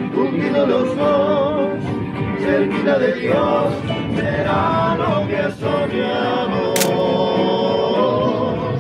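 Background music: a song with a sung melody, long wavering notes held over sustained chords, and a single sharp click about seven seconds in.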